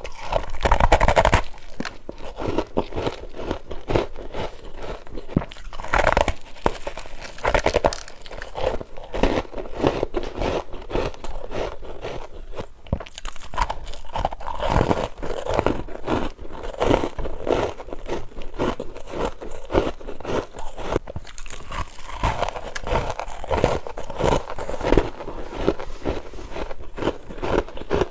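Close-miked crunching and chewing of a mouthful of dry freezer ice, a dense run of crackling bites and grinding chews.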